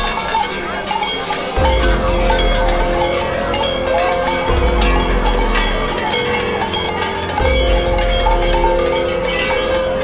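Krampus cowbells hanging from the costumed runners' belts, clanging and jangling continuously as they walk. Under them is a deep booming pulse, about every three seconds.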